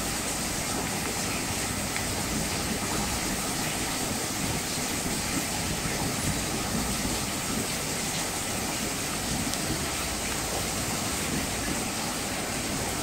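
Spoon stirring thick rice-flour batter in a bowl, a continuous wet stirring sound over a steady background hiss.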